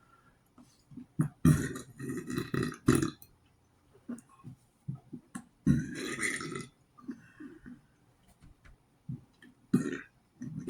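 A man burping: a long, loud burp broken into several pulses about one and a half seconds in, and a second, shorter burp around six seconds in, with a few small clicks between.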